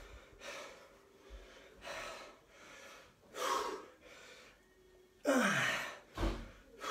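A man breathing hard under exertion during kettlebell upright rows, a forceful exhale about every one and a half seconds. The loudest breath, about five seconds in, has voice in it and falls in pitch.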